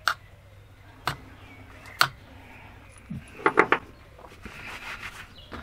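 Sharp metallic clicks from the bare pistons of a Suzuki RG500 two-stroke engine being moved by hand on their connecting rods: three single clicks about a second apart, then a quick cluster of three or four. A soft rustle follows near the end.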